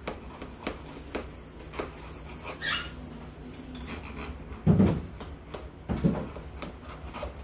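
Knife scraping and clicking against the sides of a metal loaf pan as it is run around a freshly baked loaf to loosen it for turning out, with two louder knocks about five and six seconds in.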